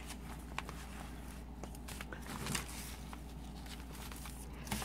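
Paper pages and envelope pockets of a handmade journal being handled and turned: soft scattered rustles and light taps, with a brief louder rustle about halfway and another near the end, over a low steady hum.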